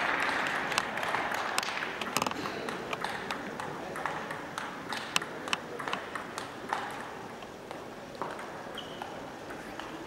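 Table tennis ball clicking sharply off the table, paddles and floor in irregular ticks, over arena crowd noise that fades over the first few seconds.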